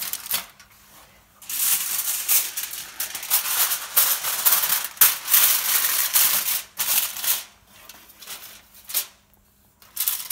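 Aluminium foil crinkling and rustling in a run of loud bursts as it is folded over into a parcel, tapering to a few quieter crackles near the end.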